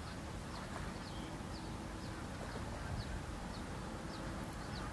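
A small bird chirping over and over, a short high falling note about twice a second, over steady outdoor background noise.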